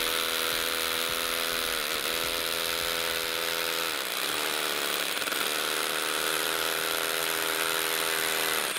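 Ryobi R18SDS 18V cordless SDS-Plus hammer drill hammer-drilling into rock, which looks like some sort of granite: a steady motor whine over the hammering. The pitch sags briefly about two seconds in and turns rough for a moment around the middle as the bit loads up.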